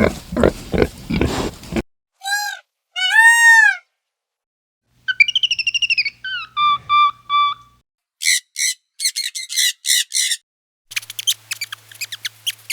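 A run of separate animal calls cut one after another: a fast series of grunts, then two arching whistled calls, a warbling call, a string of harsh chirps, and a rapid clicking chatter near the end.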